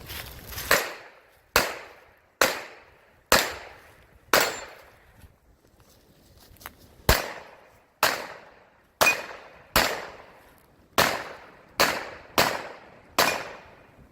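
Pistol fired in a string of about a dozen shots, most under a second apart, each trailing off in an echo. There is a pause of about two and a half seconds after the first five shots before firing resumes.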